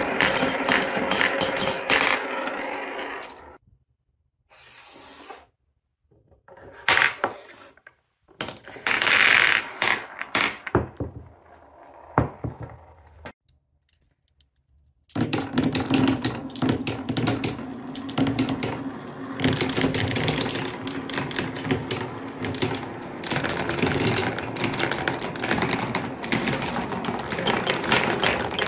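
Many glass marbles rolling and clacking through a wooden Cuboro block marble run, a dense rattle of rolling and clicking collisions. For about ten seconds in the middle it drops to near silence with a few scattered clicks, then the steady rolling and clatter of many marbles resumes.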